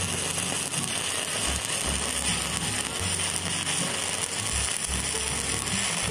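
Stick-welding arc from an ESAB Vac Pac 7018 electrode burning at 85 amps in a steady, even crackle and sizzle while laying a fillet weld.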